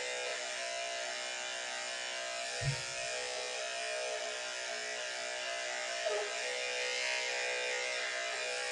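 Electric dog grooming clippers running with a steady buzzing hum, held against a schnauzer puppy's neck. A brief low thump comes about two and a half seconds in.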